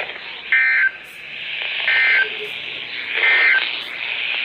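Three short bursts of the Emergency Alert System's digital SAME data tones, a rapid warbling buzz, about a second and a half apart over weather-radio static. Their shortness marks them as the end-of-message code that closes an alert.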